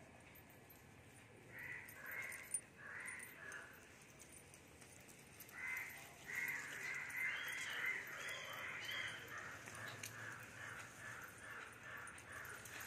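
An animal calling repeatedly: a few short calls, then from about halfway a long, even run of calls at about three a second, with one sharp click early on.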